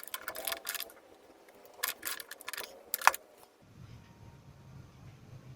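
Workbench handling noise during a TV repair: a quick run of metallic clicks and clatter from tools and small parts, with one sharp ringing clink about three seconds in. It then changes abruptly to a low steady hum with faint hiss.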